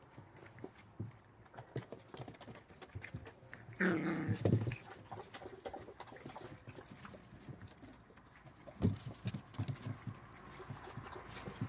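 English Shepherd dogs: one short dog vocalization about four seconds in, amid scattered small clicks and knocks.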